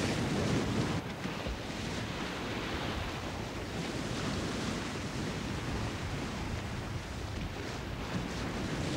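Steady rushing noise of wind and sea water, a little louder in the first second.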